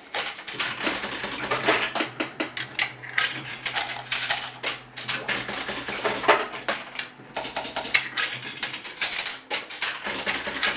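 Coins being fed into a Merkur Bonus Komet slot machine and dropping through it, with rapid, irregular clicking and clattering as its roller-digit coin-memory counter counts up. A steady low hum from the machine runs underneath.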